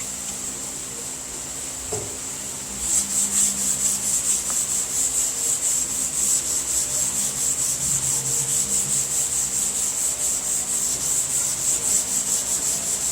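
A long sanding block with sandpaper being stroked back and forth over a primer-coated car hood, block sanding high-build primer to find its high and low spots. The rasping strokes start about three seconds in and go on rapid and even, roughly four a second.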